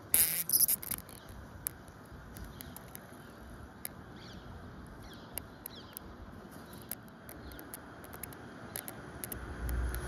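Steady outdoor background hiss with scattered small clicks, and a brief louder rustle of handling noise right at the start. A few faint, short high chirps come about four to five seconds in.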